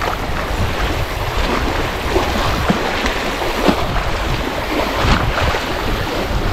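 Wind rumbling on the microphone over lake water lapping at a sandy shore, with short irregular splashes.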